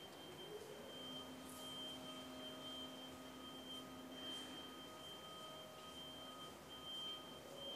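Faint sustained pure tones: a high steady tone throughout, with a few lower held notes coming in about a second in and dropping out one by one.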